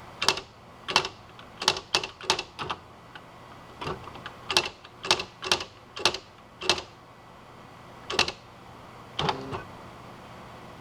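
Smith Corona SL 500 electric typewriter typing: about fifteen sharp, irregularly spaced key strikes, with a pause of over a second near the end.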